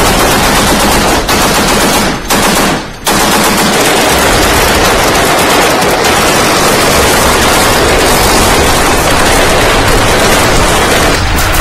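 Machine-gun fire in long, almost unbroken bursts, with brief breaks in the first three seconds.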